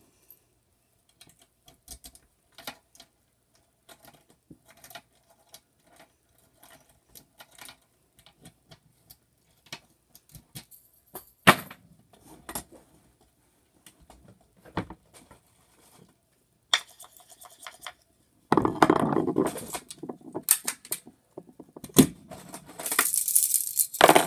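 Small objects being handled around a metal box: scattered light clicks and taps, a sharper click about halfway through, then a longer rustling clatter and more clatter near the end.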